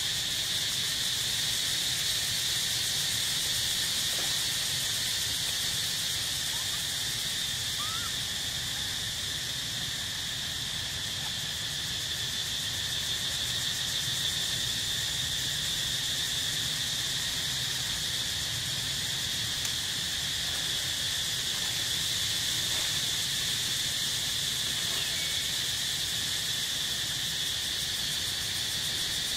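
Steady, unbroken high-pitched drone of insects.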